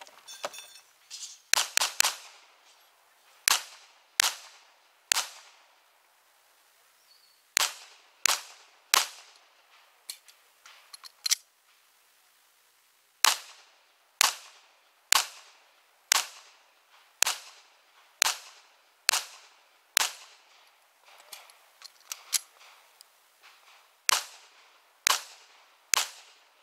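Semi-automatic pistol fired repeatedly, in quick strings of shots with brief pauses between strings.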